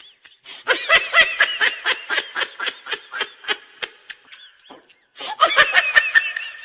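High-pitched laughter in rapid bursts, in two long runs with a short break about five seconds in.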